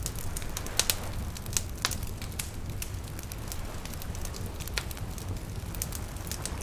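Wood fire crackling, with irregular sharp pops, the loudest a little under a second in and near two seconds, over a low steady rumble.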